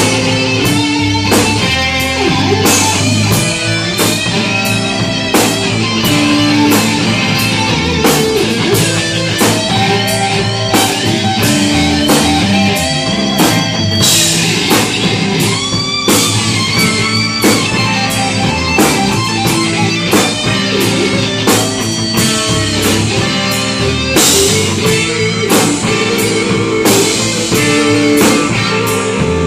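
Live rock band playing: electric guitars, electric bass and a Ludwig drum kit keeping a steady beat.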